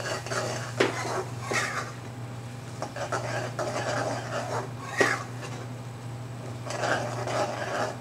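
Metal spoon stirring and scraping thick tomato masala around a metal pan, with several sharp clinks of spoon on pan, over a low steady hum.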